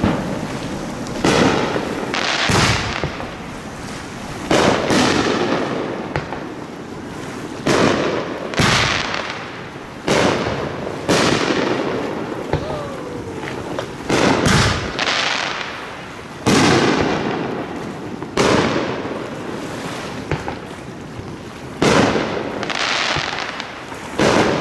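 Aerial fireworks going off in a rapid series: a sharp bang every one to two seconds, each followed by a fading, crackling hiss as the sparks burn out.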